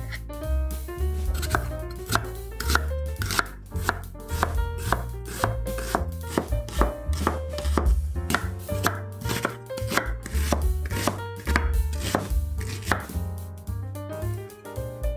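A chef's knife chopping onion on a bamboo cutting board: a steady run of quick, sharp blade strikes on the wood as the onion is sliced and then diced. Background music plays underneath.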